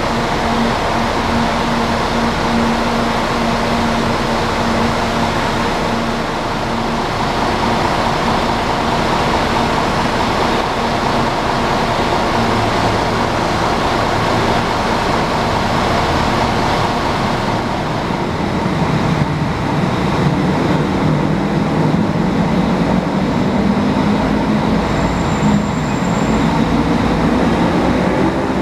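A Mercedes-Benz OC 500 RF double-decker coach idling with a steady engine hum. About two-thirds of the way through, a deeper, wavering engine note grows louder.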